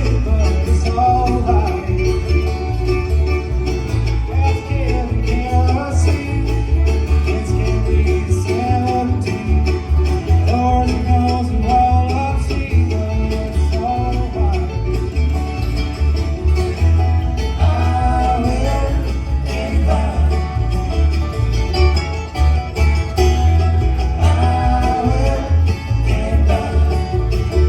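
Bluegrass-style country music: banjo and guitar with a fiddle line over a steady, pulsing bass.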